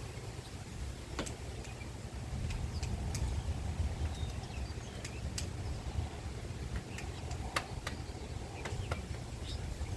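Low, steady rumble of wind buffeting the microphone as a storm blows in, with scattered short, high bird chirps every second or so.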